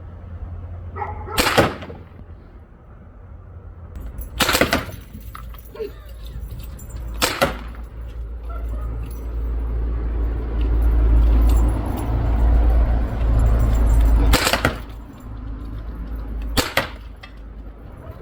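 Byrna MLR, a less-lethal launcher run on 3,000 PSI compressed air, firing single shots of 3.6-gram kinetic projectiles: five sharp cracks a few seconds apart. A steady low rumble runs underneath and is strongest in the middle.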